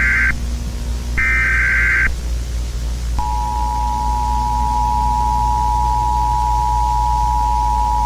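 Emergency Alert System signal: the end of one SAME header data burst and another full burst about a second in, each a buzzy warble under a second long, then about three seconds in the steady two-tone EAS attention signal starts and holds. A low steady hum runs underneath.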